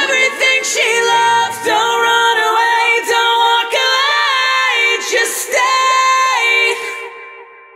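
Closing seconds of a metal/screamo song: sung, layered vocals with little low-end backing. They stop about seven seconds in and die away.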